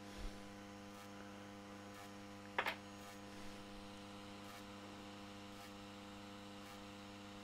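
Steady electrical mains hum with a brief tap about two and a half seconds in.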